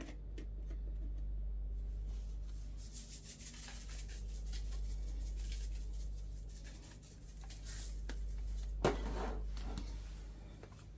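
Hands working seasoning into raw chicken, a soft continuous rubbing and squishing with a louder scrape about nine seconds in. A steady low hum runs underneath.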